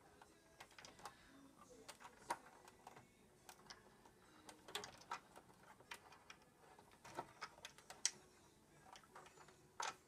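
Faint, irregular clicks and small scrapes of a hand screwdriver working at a stuck screw in the plastic cover of a burglar alarm box. The screw will not come out.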